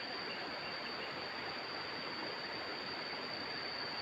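Steady outdoor ambience: a constant high-pitched insect drone over an even hiss.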